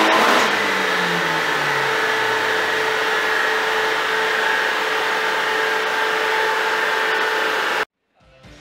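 Turbocharged 2.0-litre B48 four-cylinder of a Mini Cooper S F56 with an Armytrix valved turbo-back exhaust, winding down on a chassis dynamometer after a full-throttle pull: the engine note falls over about two seconds. A steady whine runs under it until the sound cuts off suddenly near the end.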